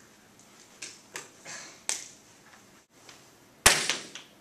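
A few short squeaky dry-erase marker strokes on a whiteboard, then about three and a half seconds in a single sharp, loud knock, the loudest sound, as something is dropped or bumped near the board.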